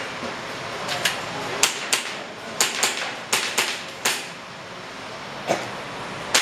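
Airsoft pistol firing during a practical shooting stage: a string of about nine sharp cracks at uneven spacing, some in quick pairs.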